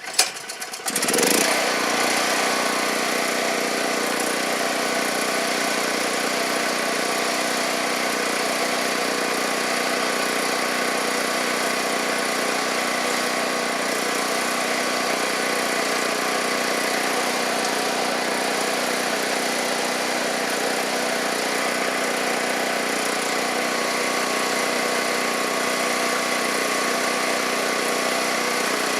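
Small engine starting up and then running steadily at a constant speed, most likely the portable generator.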